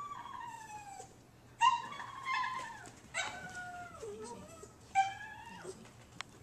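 A dog whining and yelping in a series of about four high calls, each falling in pitch, the loudest about a second and a half in.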